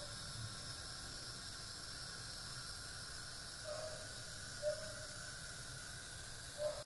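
Faint steady hiss of pasta and cacio e pepe sauce cooking in a pan over the flame, with a few faint brief pops in the second half.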